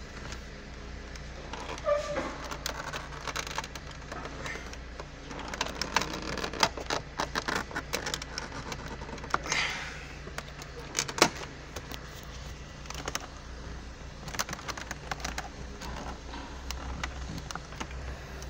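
Irregular small clicks and taps of plastic dashboard trim being handled and pulled free of its retaining clips, over a steady low hum.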